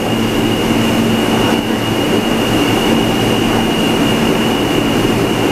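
R160 subway car running at a steady speed: a loud, even rush of wheel and track noise with a steady high-pitched tone and a low hum held throughout.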